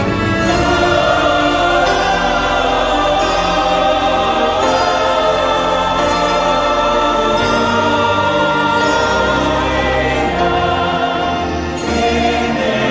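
Choral music: many voices singing together over a steady musical backing.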